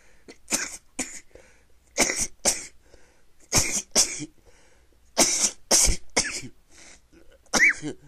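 A person in a sneezing fit: about ten short, sharp, stifled sneezes in quick succession, mostly in pairs. The last one, near the end, has a short squeaky pitch to it.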